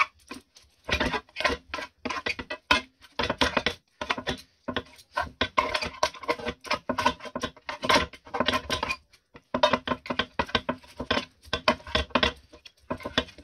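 Steel knife and fork chopping cooked chicken on a black tawa (griddle pan), the metal clicking and scraping against the pan in quick, irregular strokes.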